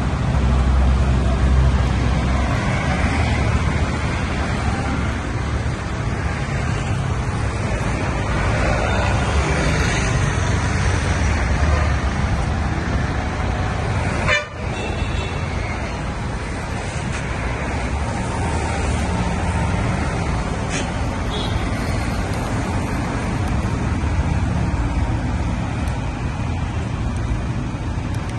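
Busy road traffic: a steady rumble of passing vehicles, with a brief break about halfway through.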